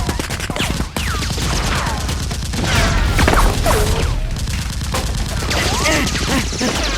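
Rapid gunfire, many shots in quick succession, with whistle-like falling glides among them.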